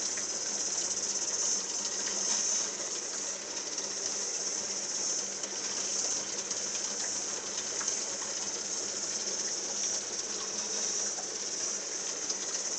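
Steady high hiss of running aquarium water, with faint scattered ticks like small bubbles breaking.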